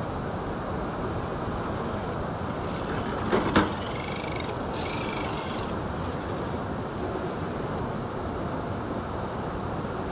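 Steady rushing noise of water running over river shoals, with two sharp knocks about three and a half seconds in.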